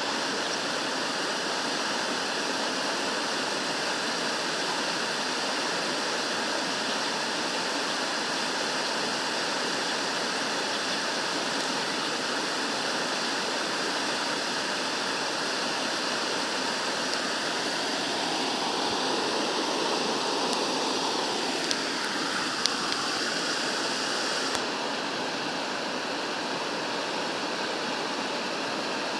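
Rushing water, a steady unbroken flow, with a couple of faint clicks about two-thirds of the way through.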